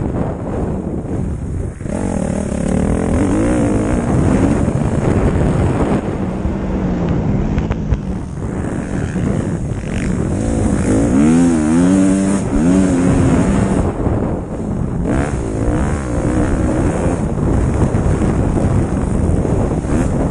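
Motocross bike engine heard up close from the rider's helmet, revving up and down over and over as the bike is ridden hard around the track. The sharpest rises and falls in pitch come a little past the middle.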